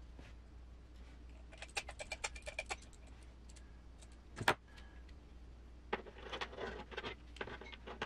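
Light clicking and clinking of small RC crawler driveshaft parts being handled and fitted together: a quick run of clicks, one sharper click about halfway through, then more clicking near the end.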